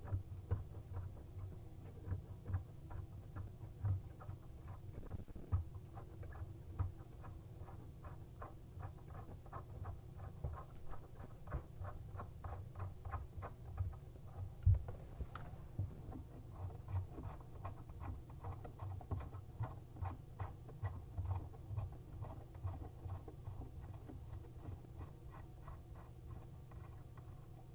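Corroded faucet spout nut being turned off its threads: a long run of small irregular scraping clicks, with the threads a little crusty.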